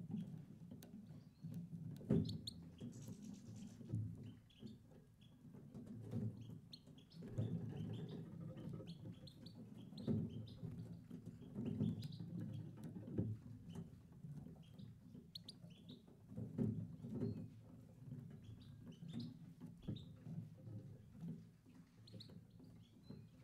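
European goldfinches in an aviary giving short, high chirping calls scattered throughout, over an uneven low rumble, with a sharp click about two seconds in.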